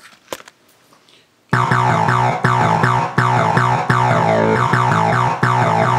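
A faint click, then synthesizer keyboard music cuts in suddenly about a second and a half in: a repeating pattern of notes struck roughly every 0.8 s.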